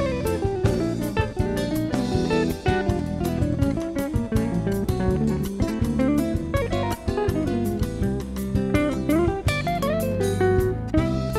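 Archtop hollow-body electric guitar playing a continuous improvised run of quickly changing notes.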